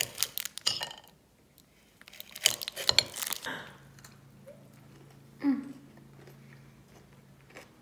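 Biting and chewing a Cadbury Double Decker chocolate bar, its crispy cereal layer crunching in a dense run of crackles about two and a half to three and a half seconds in, then quieter chewing and a short 'mm'.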